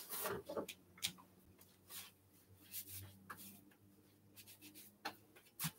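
Faint rustling and a few light clicks as wet hands are dried on a cloth towel, over a low steady hum.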